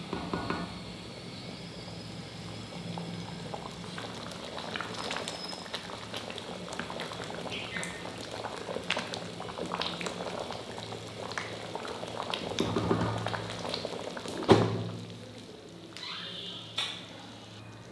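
Pot of sambar bubbling at a boil, a steady hiss scattered with many small pops. Two sharp knocks near the end, the first the loudest.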